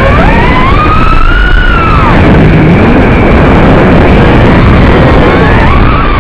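FPV quadcopter's motors and propellers whining over a loud, rushing wind noise, the whine sliding up and down in pitch as the throttle changes. The pitch climbs in the first two seconds, fades into the rush, then sweeps again near the end.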